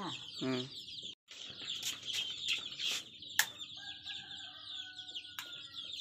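Many young chicks peeping at once, a dense high-pitched chatter, cut off briefly about a second in, with a few sharp clicks later on.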